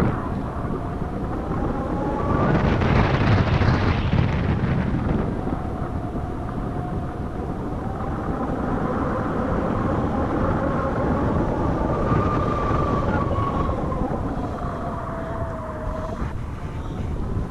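Airflow rushing and buffeting over the camera microphone during paraglider flight, with a stronger gust about three seconds in. A faint whistle wavers slowly in pitch underneath.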